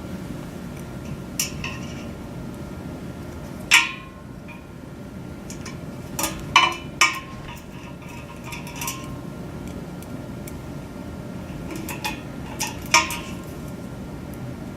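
Sharp metallic clinks and knocks of hand tools and hardware against metal parts during assembly, about ten scattered strikes, the loudest about four seconds in and a quick cluster around six to seven seconds. A steady low hum runs underneath.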